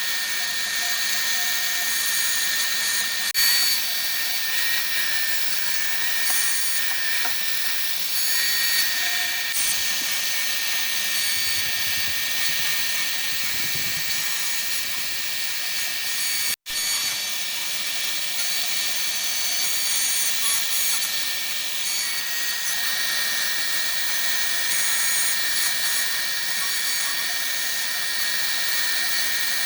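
Millright Mega V CNC router carving a 3D relief into wood: a steady high whine from the spindle with cutting noise. The sound drops out for an instant a little past halfway.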